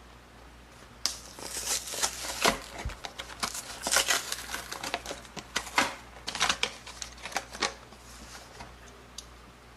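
Handling noise: a quick, irregular run of clicks and rustles from small hard objects being handled, starting about a second in and dying away near the end.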